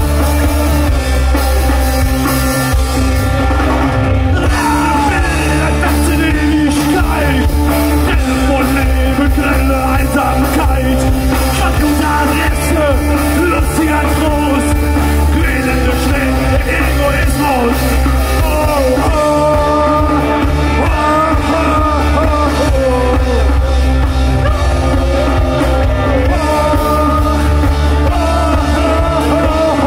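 Rock band playing live: electric guitars, bass and drums, with a male lead singer singing over them from about four seconds in.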